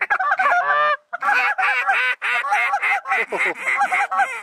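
Hand-blown goose calls in a fast, loud run of short honks and clucks, several a second, with two brief breaks: about a second in and just after two seconds. The calling is aimed at waterfowl circling low over the decoys.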